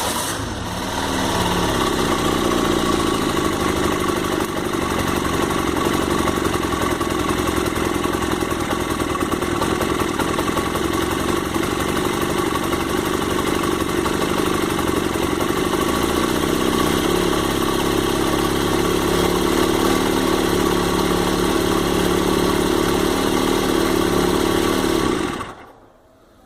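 Freshly rebuilt 1999 Honda CG motorcycle's single-cylinder four-stroke engine starting and running steadily at idle with its valve cover off, being run to check that oil now reaches the rocker arms. Its speed shifts briefly about two-thirds of the way through, and it is switched off suddenly a second before the end.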